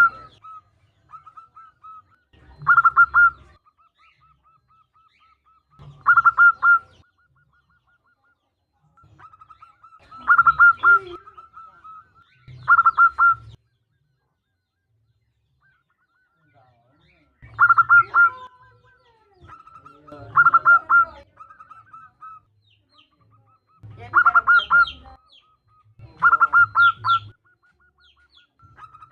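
Zebra dove (perkutut) calling, which the title gives as a female calling to a male: about nine loud bursts of quick, rolling coos at a steady pitch, every two to four seconds, with softer purring coos in between.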